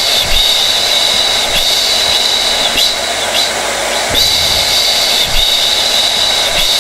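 Hair dryer running steadily: a loud rush of air with a high whine on top, the pattern repeating about every five seconds.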